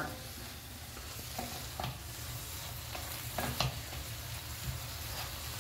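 Chicken with onions, bell peppers and celery sizzling in a frying pan while being stirred with a wooden spatula, with a few short knocks of the spatula against the pan.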